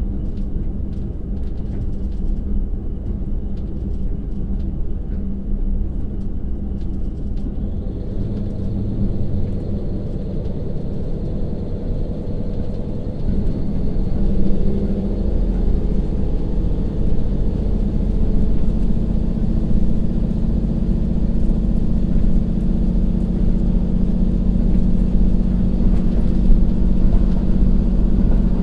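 Interior sound of a KiHa 182-500 diesel railcar, its DML30HSJ direct-injection 12-cylinder diesel under the floor, over steady rail running noise. About seven or eight seconds in, the engine is throttled up to power the train in torque-converter drive. It grows louder about fourteen seconds in, as the train gathers speed.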